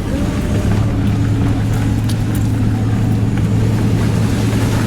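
A vehicle driving on a gravel logging road: a steady engine hum over rough, even road noise from the tyres.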